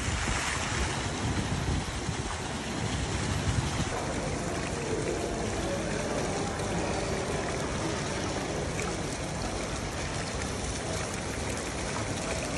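Decorative fountain water splashing and trickling steadily.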